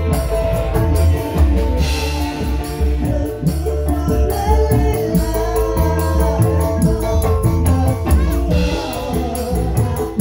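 Live band music over stage loudspeakers: a woman singing into a microphone over electric guitar, keyboard and drums with a strong, steady beat.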